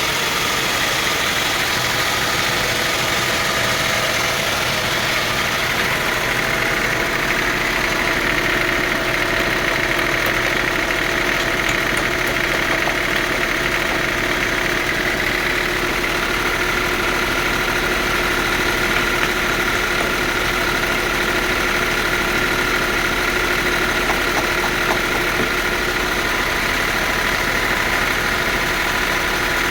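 Sawmill machinery running steadily, an engine-like drone with a high whine; a second, slightly lower whine joins about halfway through.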